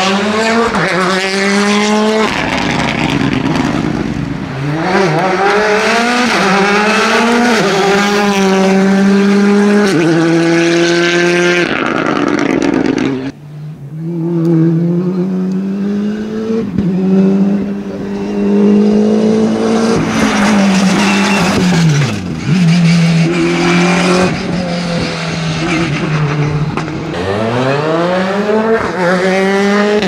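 Rally cars at full stage pace: engines revving hard, the note climbing through each gear and dropping back at the shifts and under braking, with cars swooping past close by. The sound cuts off abruptly about halfway through, then another run picks up.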